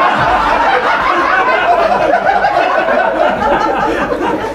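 Live audience laughing loudly together after a joke's punchline, many voices overlapping.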